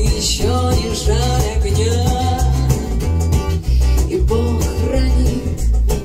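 Rock song playing, probably an instrumental passage near the end: a steady drum and bass beat with guitar and a gliding melodic lead line.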